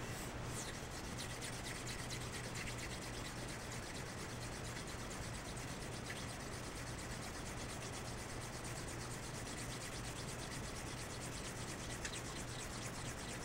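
Straight razor honed in quick short strokes on a 1,000-grit Shapton waterstone: a faint, steady rub of steel on wet stone while the bevel is being set.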